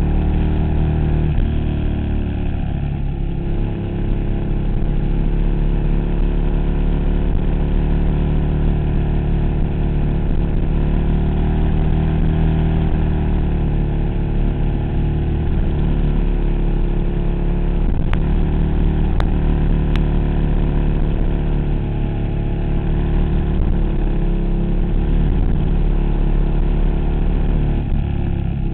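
2008 KTM Super Duke's V-twin engine running under way, heard from on the bike, its pitch rising and falling gently through the curves over a steady rush of wind and road noise.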